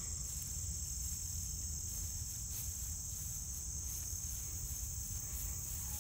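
A steady, high-pitched chorus of insects trilling without a break, over a low rumble and a few faint rustles in the grass.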